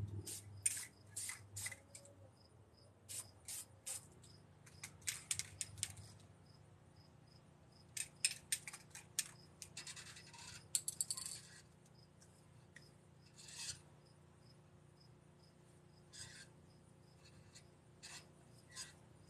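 Spray paint cans being handled and shaken: clusters of short metallic clicks and rattles, densest about ten seconds in.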